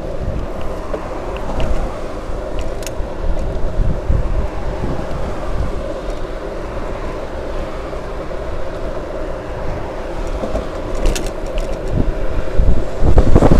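Wind rushing over the microphone of a camera on a moving bicycle, over a steady rumble of tyres on asphalt. The wind gets louder near the end.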